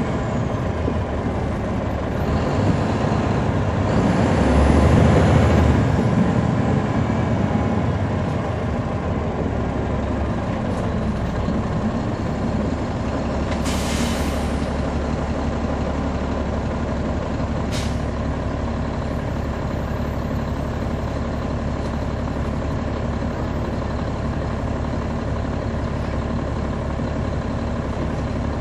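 Caterpillar C13 ACERT diesel engine of a NABI 40-foot transit bus, heard from the rear seats: it pulls loudest about four to six seconds in, its revs fall away as the bus slows, then it runs steadily. A short hiss of air from the air-brake system comes about halfway through, with a shorter one a few seconds later.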